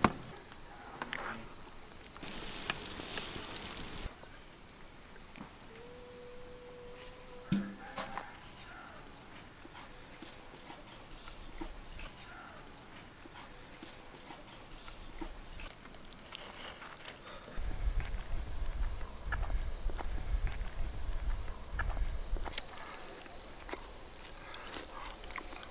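Insects trilling steadily at a high pitch, with a brief burst of hiss about two seconds in and a low rumble for a few seconds in the second half.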